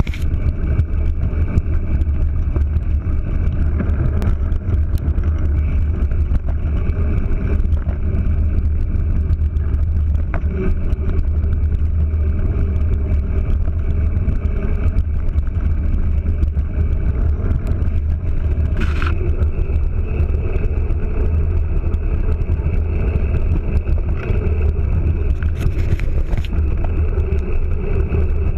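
Bicycle rolling along a gravel road, heard from a camera mounted on the bike: a loud, steady low rumble of tyre and wind noise, with a few brief clicks and rattles.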